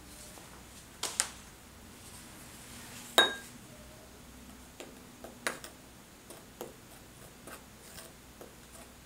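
Wooden spoon knocking and tapping against a small glass bowl while stirring powder: a pair of knocks about a second in, one loud clink that rings briefly about three seconds in, then lighter, irregular taps.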